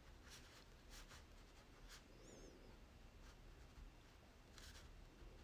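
Black Crayola crayon scratching faintly on drawing paper in a few short, separate strokes.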